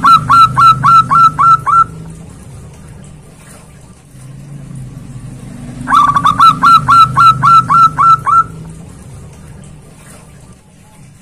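Zebra dove (perkutut) singing: two bouts of quick, repeated ringing notes, about four a second. The first bout is already underway and ends about two seconds in; the second starts about six seconds in and lasts about two and a half seconds. A steady low hum runs underneath.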